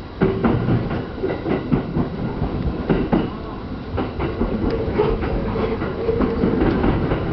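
E231 series electric train's wheels clattering over pointwork and rail joints, with irregular sharp knocks over a steady running rumble that sets in suddenly just after the start.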